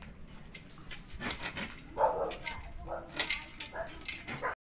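A dog barking several short times, mixed with voices and clicks; all sound cuts off abruptly near the end.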